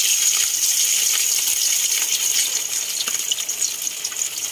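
A whole fish frying in hot oil in a wok: a steady high sizzle with scattered crackles and small pops, easing a little near the end.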